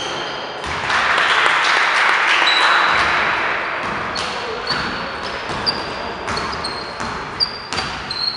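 Indoor basketball game: sneakers squeaking in short, high chirps on the hardwood gym floor and the ball bouncing in scattered thuds, with a loud swell of noise in the first few seconds.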